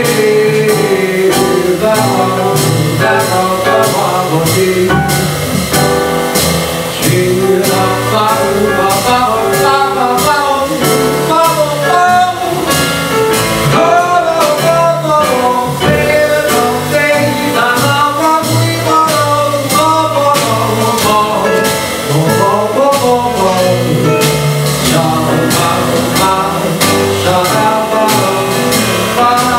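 Small jazz combo playing a slow song: a singer's voice over a digital stage piano, upright double bass and drum kit, with the drummer keeping time on the cymbals.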